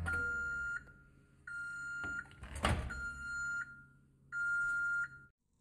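Hamilton Beach microwave oven finishing its cycle: the running hum cuts off and the end-of-cycle beeper sounds four long beeps at one steady pitch, about a second and a half apart. Between the second and third beeps comes a short clunk of the door being opened.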